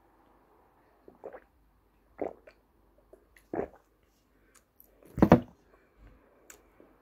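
A person chewing and biting ayilo, an edible clay: four separate mouth sounds, the loudest about five seconds in.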